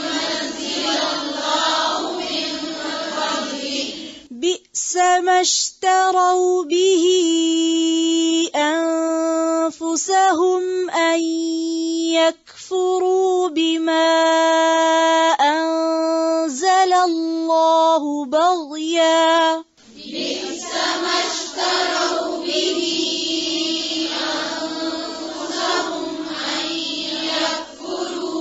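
A woman reciting Quran verses from Surah al-Baqarah, ayah 90, in a melodic tajweed style. From about four seconds in to about twenty seconds in, the recitation holds long, steady notes with slow turns of pitch.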